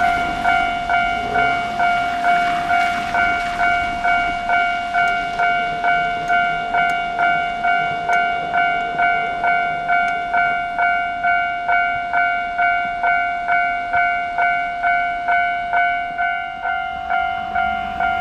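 Japanese railway level-crossing alarm ringing: an electronic bell striking about twice a second over a steady ringing tone, the warning that a train is approaching.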